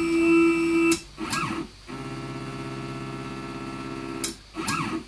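Stepper motors of a homebuilt CNC router driving the X and Y axes together through a homing cycle, making two goes at the end stops. A steady pitched whine stops with a click about a second in, followed by a short rising-and-falling whir. A lower, slower steady whine then runs until another click just past four seconds, and a final short whir ends it.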